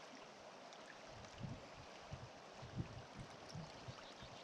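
Faint, steady rush of a flowing river, with a few soft low thumps from about a second in.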